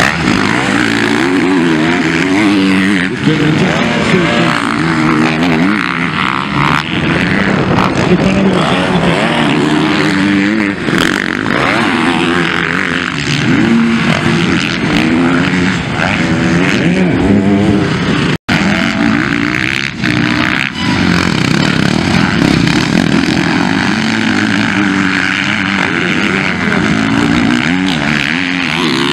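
Several MX1 motocross bikes racing, their engines revving up and down over and over as riders throttle into and off the jumps. The sound drops out for an instant about two-thirds of the way through.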